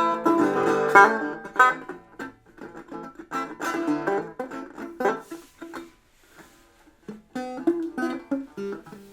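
Plucked string instrument played solo, a run of picked notes that thins out, falls nearly quiet about six seconds in, then starts up again.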